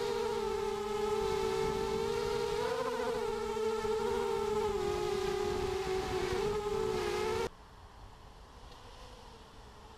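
Mini quadcopter's motors and propellers whining in flight, the pitch wavering up and down with the throttle. About seven and a half seconds in the whine cuts off abruptly to a faint hum as the quad comes to rest on the grass.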